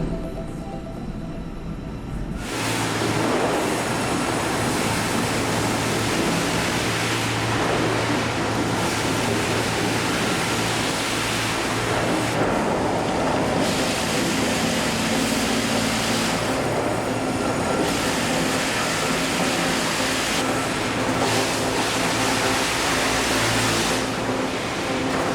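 Sawmill machinery running: a loud rushing noise over a steady low hum, the hiss easing briefly every few seconds.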